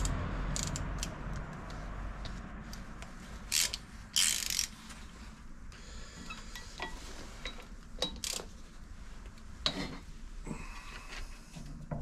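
Ratchet wrench clicking and hand tools clinking while bolts on a Deutz DX90 tractor's flywheel are worked loose, with scattered sharp ticks and a louder clatter about four seconds in.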